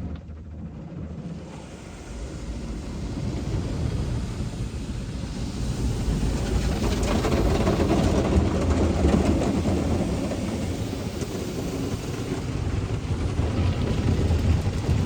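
Ryko Softgloss MAXX 5 automatic car wash machine starting its cycle over a parked car, heard from inside the car: a rumbling, spraying wash that grows louder over the first several seconds and then holds steady.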